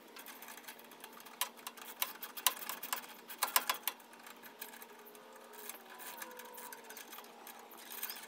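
Ratchet wrench clicking in quick runs as nylon lock nuts are tightened onto the awning bracket bolts. The clicking is densest in the first half and thins out later.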